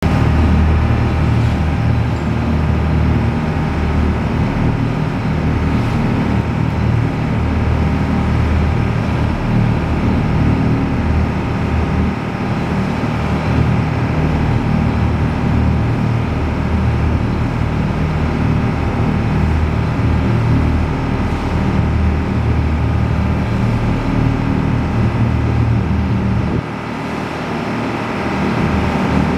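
A motorboat's engine running steadily at cruising speed, with the rush of water from the wake along the hull. The level dips briefly near the end, then builds back.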